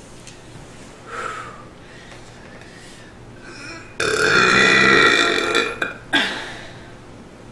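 A woman belching: a long, loud burp starts abruptly about four seconds in and lasts nearly two seconds, followed by a short second burp. She is bringing up trapped air from a bloated stomach.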